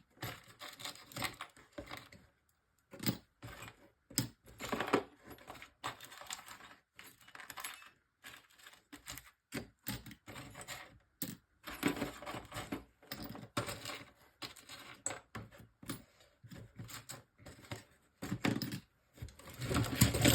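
Pieces of scrap copper and brass clinking and clattering as they are sorted by hand and dropped, in irregular clicks with a busier, louder spell near the end.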